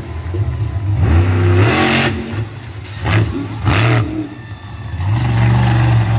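Monster truck engine revving hard in repeated surges, its pitch climbing and dropping, with the loudest rushes about two, three and four seconds in as the truck throws up dirt during its freestyle run.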